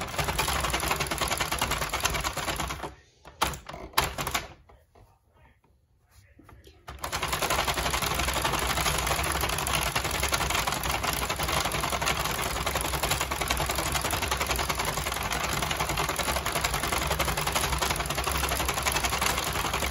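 48-pin Sentro knitting machine being hand-cranked, its plastic needles clattering rapidly as they ride round the cam track. The cranking stops about three seconds in, with a couple of single clicks. It starts again about four seconds later and runs steadily until just before the end.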